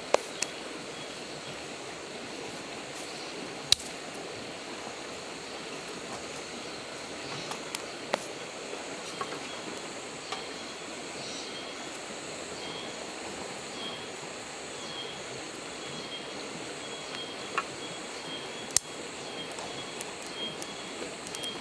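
Sticks and twigs being laid into a small folding steel wood stove, giving a handful of sharp clicks and knocks, the loudest about four seconds in and near the end, over a steady outdoor hiss.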